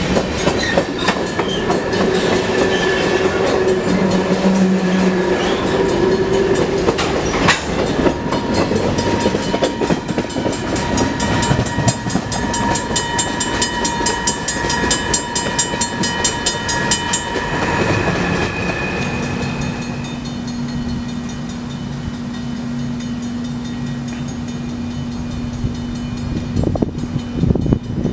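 A train passing close by, the steady rolling noise of its wheels on the rails carrying several steady high tones; the noise eases about two-thirds of the way through, leaving a quieter steady low hum.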